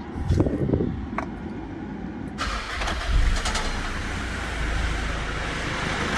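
Mitsubishi Pajero Full's 3.2-litre diesel engine cranked by the starter; it catches within about a second and settles into a steady idle. The engine has a stretched timing chain that rubs intermittently.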